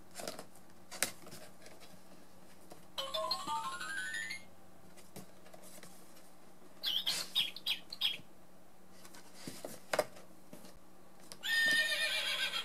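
Electronic sound-book chips playing through a small speaker as buttons are pressed: a rising run of stepped tones about three seconds in, chirpy electronic bird tweets around seven seconds in, and a short burst of tinny music near the end. A few short clicks from handling the book fall in between.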